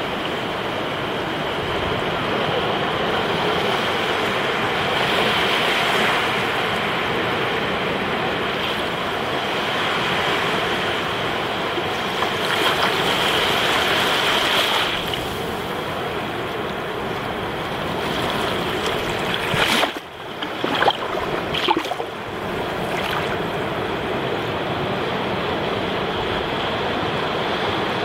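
Small Black Sea waves breaking and washing up over wet sand at the water's edge, heard close up. The surf swells as a wave breaks and rushes in about halfway through. About three-quarters of the way in there is a brief run of sharp knocks or splashes right at the microphone.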